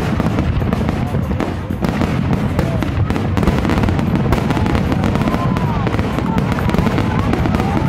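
Aerial fireworks display: shells bursting in a dense, continuous run of bangs and crackling, with no real pause between them.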